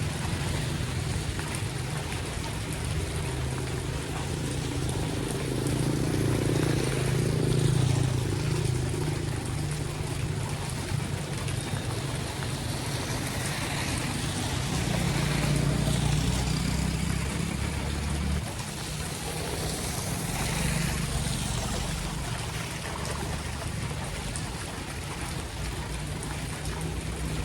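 Rain and floodwater rushing steadily, with a continuous low rumble underneath.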